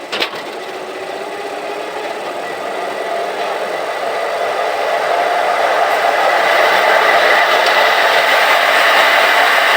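An electric power tool's motor running steadily with a whine, getting gradually louder, after a single knock at the start.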